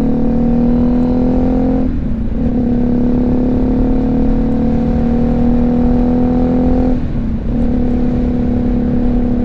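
BMW G310GS single-cylinder engine running on the road, its note slowly rising, then breaking off briefly twice, about two and seven seconds in, as gears change. A heavy low rumble of wind noise on the helmet mic runs underneath.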